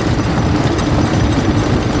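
A primary jaw crusher running and crushing rock: a steady, loud, heavy mechanical rumble with a faint grinding crackle on top.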